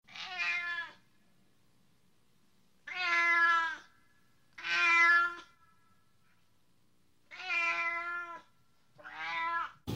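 Domestic cat meowing five times, each meow drawn out for nearly a second with pauses of one to two seconds between.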